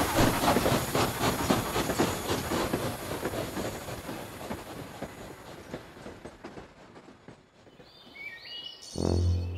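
Steam locomotive chugging and hissing as it pulls away, the rapid rhythm fading steadily into the distance over about eight seconds. Music starts near the end.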